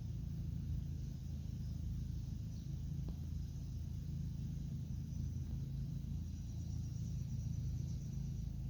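Steady low rumble with faint, high insect chirring above it.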